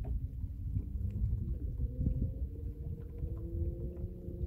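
Wind rumbling on the microphone in an open fishing boat, with a faint steady hum underneath.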